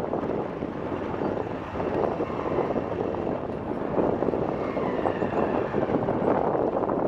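Steady rushing of water pouring over a large river waterfall.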